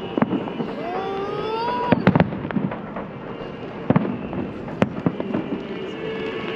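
Fireworks salute going off: a steady din of bursts and crackle, with several sharp bangs about two, four and five seconds in.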